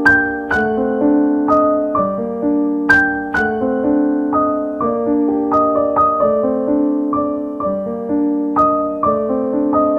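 Background music: solo piano, notes struck about twice a second, each ringing and fading.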